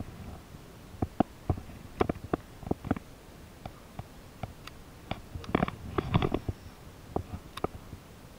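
Irregular clicks and knocks from a baitcasting rod and reel being handled and worked, with a denser run of clicks around six seconds in.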